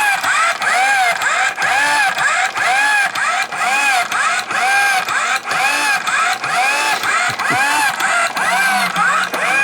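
Homemade washing machine running: its motor gives a whine that rises and falls over and over, about twice a second, with regular clicks in the same rhythm.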